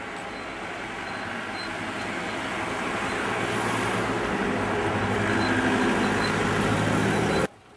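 Road traffic: a motor vehicle's engine and tyres approaching and passing close, growing steadily louder, then cutting off suddenly near the end.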